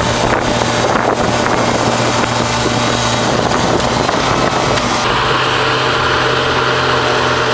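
Heavy forestry machinery running: a steady engine hum under loud mechanical working noise, which changes in character about five seconds in.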